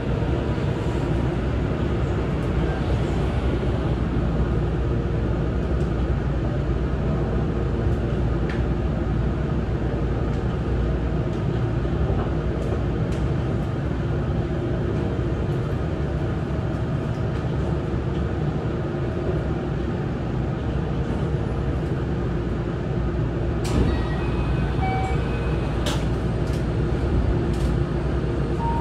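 Keihan commuter train's steady running noise heard from inside the car as it meets a train going the other way, then draws into a station and comes to a halt. A few sharp clicks come about three-quarters of the way through.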